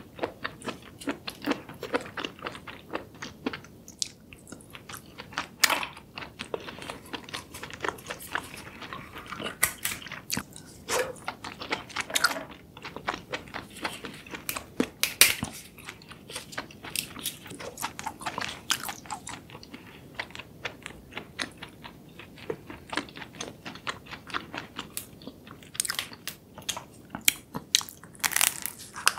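Close-miked eating of spicy, sauce-coated seafood: wet chewing and biting with many sharp crunching clicks, mixed with sticky sounds of gloved hands pulling shellfish apart.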